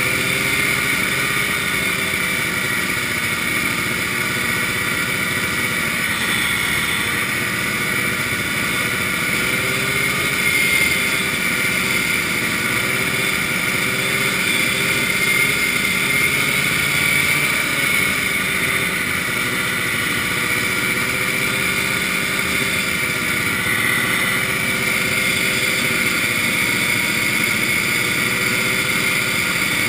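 Vintage snowmobile's two-stroke engine running steadily at cruising speed, heard from the driver's seat, its pitch rising and falling a little with the throttle.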